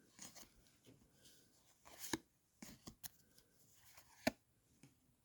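Faint handling of trading cards: short rustles and clicks as cards are picked up and set down, with two sharper clicks about two seconds in and near four seconds.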